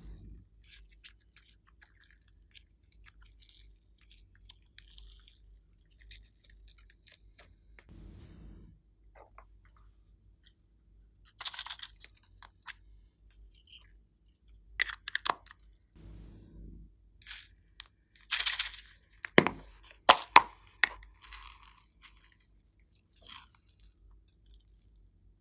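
Glossy slime being worked by hand: scattered sticky clicks, crackles and squishes. There are louder clusters about halfway through and again near the end, the loudest about 20 seconds in.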